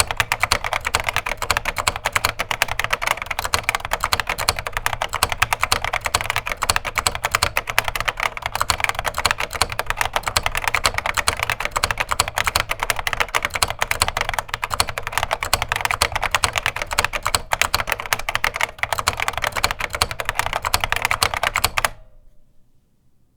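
Fast, continuous typing on a vintage Yuxing Computer Learning Machine keyboard with its HXJ-1 mechanical key switches: a dense run of key clacks that stops about a second before the end.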